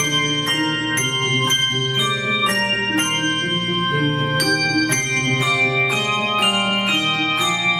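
Handbell choir playing a piece: several bells struck together in chords, in a steady rhythm, each note ringing on under the next.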